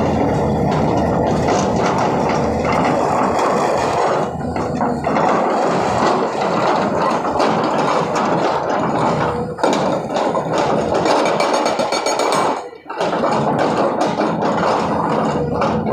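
Hydraulic rock breaker on a SANY 210 excavator hammering rock in a rapid, continuous stream of impacts, stopping briefly a few times.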